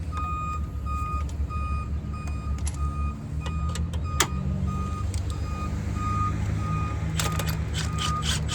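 Electronic warning beeper sounding short beeps at one steady pitch, about two a second, over a low steady mechanical hum. Scattered sharp metal clicks and taps come from spark plugs and tools being handled in the engine bay, the loudest about four seconds in.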